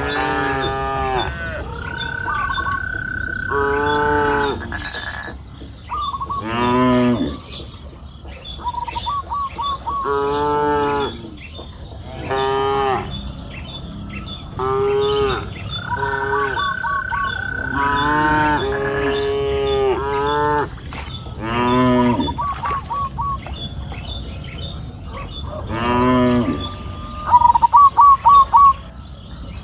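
Cows mooing again and again, a dozen or so long calls, some overlapping, with short runs of quick chirping between them, the loudest run near the end.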